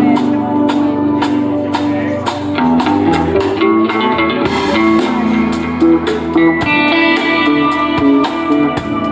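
A live band playing at a sound check: electric guitar over a drum kit keeping a regular beat.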